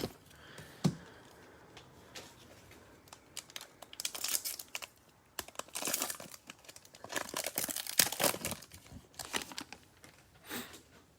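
Cellophane wrapper of a baseball card cello pack crinkling and tearing as it is opened, in several separate bursts, with a sharp click about a second in.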